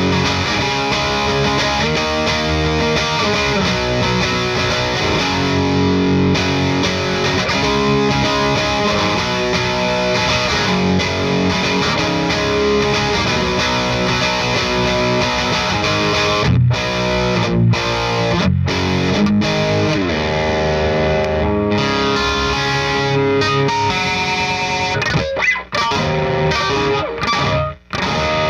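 Electric guitar with P90 pickups, a Gibson Les Paul Tribute, played through an 18-watt Satellite Neutron amp with an overdriven tone. It runs chords and single-note lines, with a few short stops just past the middle and several abrupt stops near the end.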